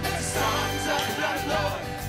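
Live worship band and singers performing a gospel-style praise song, with steady bass notes under a wavering sung melody.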